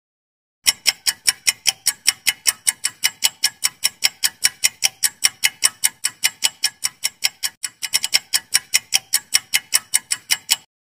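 Countdown-timer sound effect: a clock ticking steadily, about four ticks a second. It starts about a second in and stops shortly before the end, with a brief stumble in the rhythm about three-quarters of the way through.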